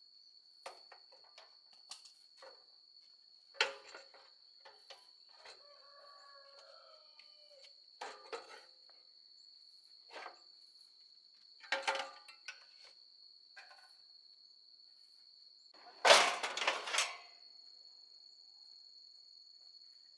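Crickets trilling steadily on one high pitch, with scattered knocks and clicks and a louder, longer clatter about sixteen seconds in.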